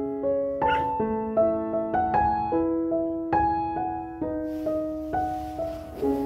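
Slow, gentle piano music, one note after another. A small dog gives a single short yip about a second in.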